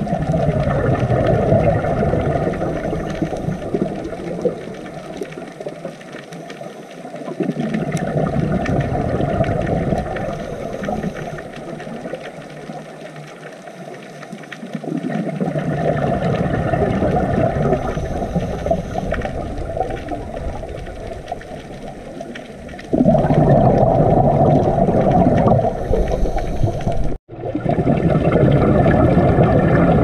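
Underwater ambience: a low, rushing rumble of water and bubbles that swells and fades over several seconds at a time, louder from about three quarters of the way in, with a brief dropout just after that.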